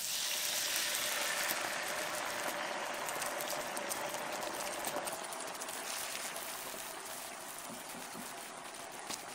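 Sauce poured into a hot frying pan of fried eggplant, hissing and bubbling at first and then settling into a simmer that slowly grows quieter as the sauce reduces.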